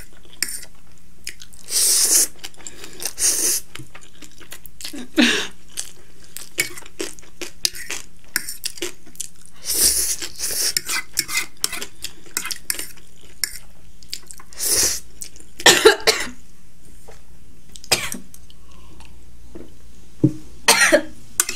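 Spicy instant noodles being slurped and chewed close to the microphone, with a fork clinking and scraping on the plate. Several short coughs break through, set off by the chilli heat.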